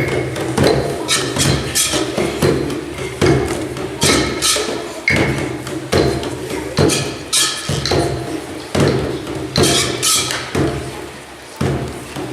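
Percussion playing a string of sharp wooden knocks and thumps, roughly two a second, some with a short ringing tone; it eases off briefly near the end.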